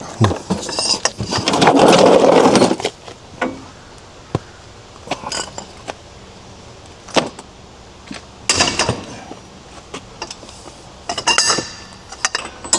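Metal hand tools and parts clinking and rattling as they are handled, with a loud rough noise lasting about a second and a half near the start.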